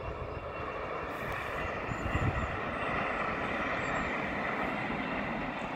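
A passenger train running across a brick railway viaduct, heard from the ground below as a steady, even rush and rumble of wheels on the rails. It swells slightly about two seconds in.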